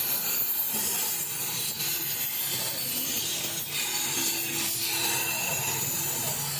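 Steady rasping, scraping noise of a hand tool working against a hard surface.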